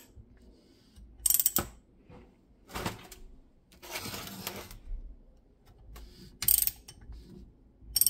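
Socket ratchet clicking in short bursts a second or two apart as it turns an inline-four motorcycle engine's crankshaft over by hand.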